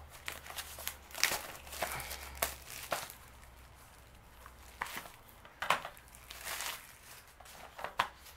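Plastic shrink wrap crinkling and tearing as it is peeled off a Blu-ray case, in irregular crackles with a few sharper snaps.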